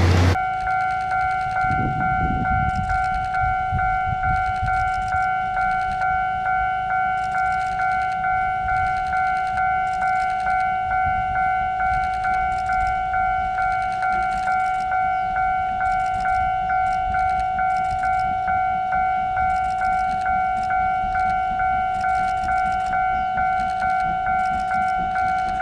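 Railway level-crossing warning bell ringing steadily, an electronic ding repeating about one and a half times a second.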